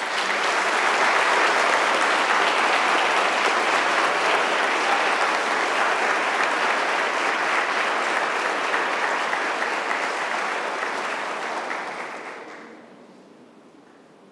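Wedding congregation applauding: dense, steady clapping that fades away about twelve seconds in.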